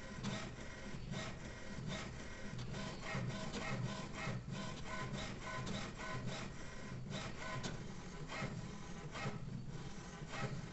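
HP Smart Tank 580 inkjet printer printing its alignment page during initial setup. The mechanism runs as a faint, continuous sequence of short repeated strokes.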